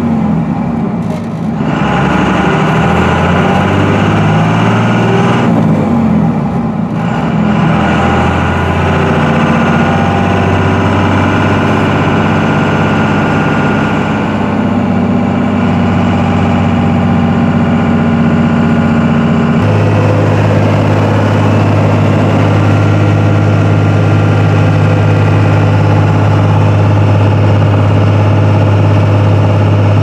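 Dodge Ram's 24-valve Cummins 5.9-litre inline-six turbodiesel pulling the truck along the road, heard from inside the cab. The engine note dips briefly twice in the first seven seconds, then runs steady at about 2,000 rpm, changing slightly in pitch about two-thirds of the way through.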